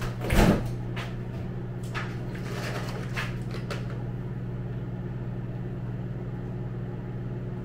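Microwave oven running with a steady electrical hum while reheating cold food. A single knock about half a second in and a few light clicks after it.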